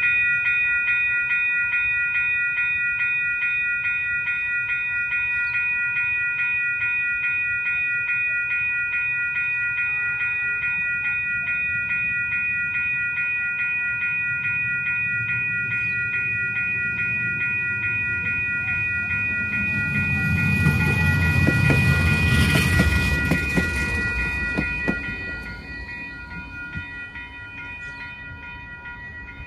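Level-crossing warning bells ringing steadily with a fast repeating pattern while the boom gate is down. About twenty seconds in, a tram passes close by with a rush of wheel and motor noise for about five seconds, then the level falls away as it leaves.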